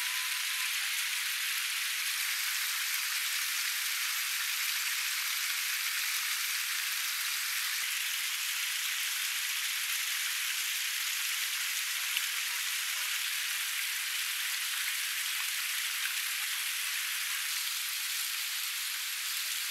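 Water running and splashing steadily down a rock face in a small cascade.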